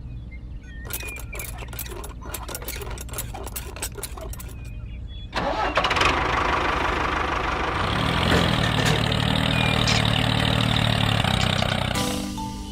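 A tractor engine started: a run of clicks and rattles for the first five seconds, then the engine suddenly catches and runs loudly, its low drone settling in and briefly rising in pitch about eight seconds in. Music comes in just before the end.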